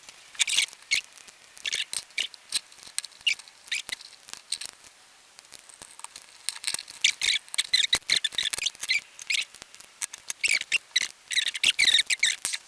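Needle-nose pliers working a cotter pin into the hole in a 1935 Ford door handle's shaft: clusters of quick small metal clicks and scrapes, busiest in the second half.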